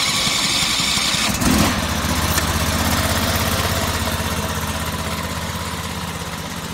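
Sawmill engine just after starting, running with a brief rise in speed about a second and a half in, then settling into a steady idle as it warms up.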